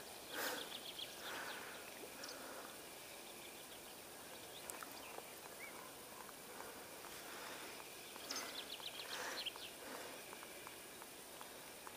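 Faint ticking of an ultralight spinning reel being cranked during a lure retrieve, over quiet open-air hiss, with a brief high chirp near the middle.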